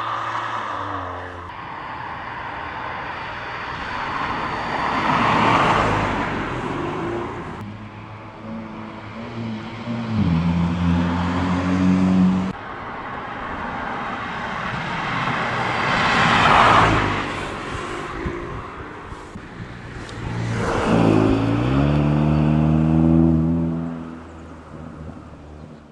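Hyundai i30 N Fastback's turbocharged 2.0-litre four-cylinder engine and exhaust, in several cut-together clips: the car accelerating with a rising engine note and passing by, its sound swelling and fading.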